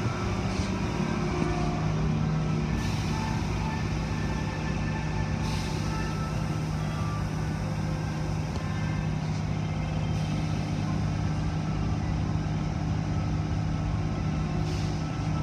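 Automatic car wash tunnel machinery running: a steady low motor hum under constant water spray and spinning brushes, with short hisses about four times.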